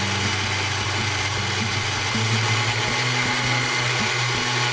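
Electric countertop blender running steadily, its motor whirring as it purées frozen strawberries, red grapes and baby carrots with yogurt and almond milk into a smoothie.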